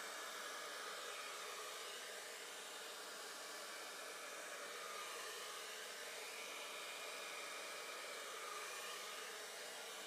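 Handheld hair dryer running steadily, its air stream blowing wet acrylic paint across a canvas.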